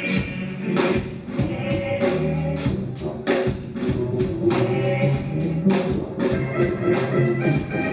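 A live band playing an instrumental stretch of a song, with no vocals. Sharp percussion hits keep a steady beat, a few to the second, over a bass line.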